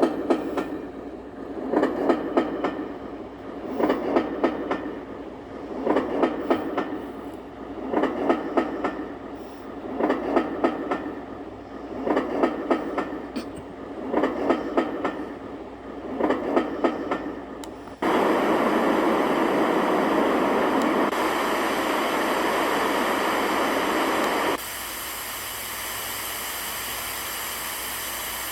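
A sleep sound machine playing its train track: the clickety-clack of rail wheels, swelling with a run of clicks about every two seconds. About 18 seconds in it switches to a steady rushing noise, and about six seconds later to a thinner, steadier hiss.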